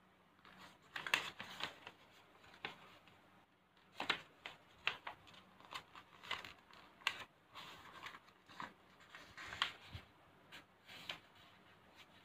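A sheet of paper being folded and creased by hand: irregular rustles and crisp crackles as it is bent over and pressed flat.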